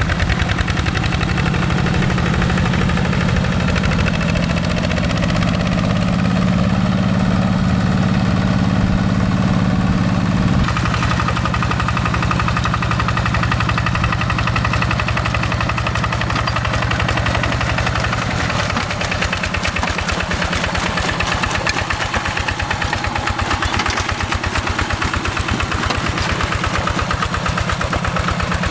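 Yanmar single-cylinder diesel engine of a Quick G1000 two-wheel rice-field tractor running under load in paddy mud, with a fast, even knocking beat. Its engine note drops suddenly about a third of the way in and shifts again a little later, as the load or throttle changes.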